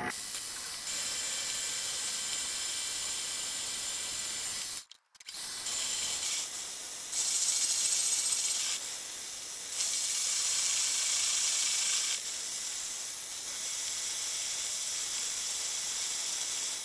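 Paulimot mini metal lathe running with the cutting tool turning a taper on a steel bar: a steady high hiss of cutting. It cuts out briefly about five seconds in and is louder in two stretches in the middle.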